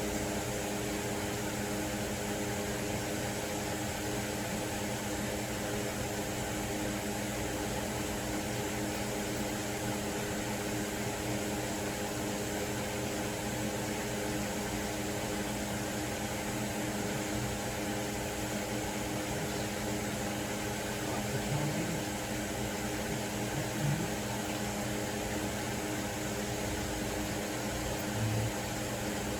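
Steady mechanical hum of a running motor or fan, with a few faint low knocks in the second half.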